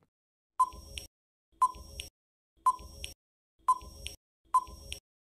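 Countdown timer sound effect ticking five times, about once a second, each tick a short sharp blip with a fainter click after it.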